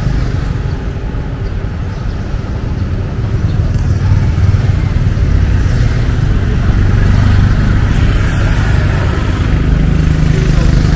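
City street traffic, motorbike and car engines passing with a steady low rumble.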